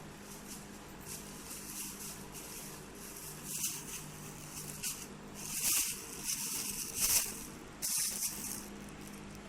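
Plastic rustling and crinkling as a kitten plays with it, in several short bursts, the loudest a little past the middle and near the end.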